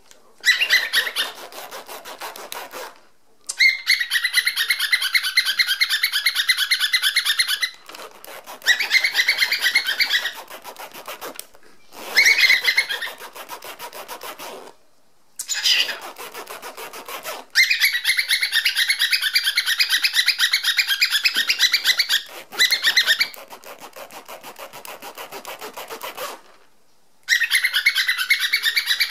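A zipper being run open and closed over and over, each pull a rapid run of clicking teeth lasting a few seconds, with short pauses between pulls. A cockatiel chirps and whistles along.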